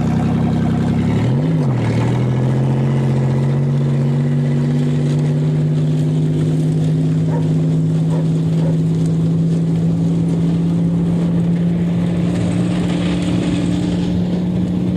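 An engine running at a steady speed, with one brief rev that rises and falls about a second and a half in.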